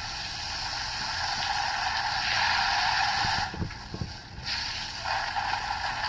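Garden hose spraying water in a binaural 3D-audio recording, a steady hiss that cuts out briefly about three and a half seconds in, with a few soft low thuds, then resumes.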